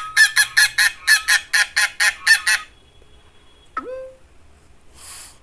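Goose honking in a fast run of about a dozen honks, roughly five a second, for the first two and a half seconds. It is followed by a short sliding tone and a brief whoosh near the end.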